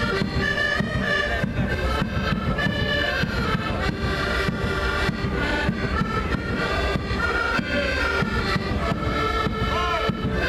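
Accordions playing a lively Portuguese folk tune with a steady beat.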